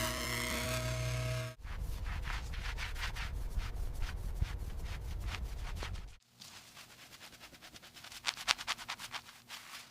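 Quick, repeated rubbing strokes, several a second, in two stretches split by a cut; the second stretch is fainter and sharper. A steady machine drone cuts off about a second and a half in.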